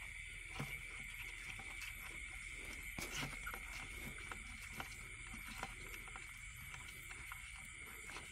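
Quiet night ambience over floodwater: a steady high-pitched insect drone with scattered soft knocks and small water sounds from someone moving through the shallows, one knock about three seconds in a little louder than the rest.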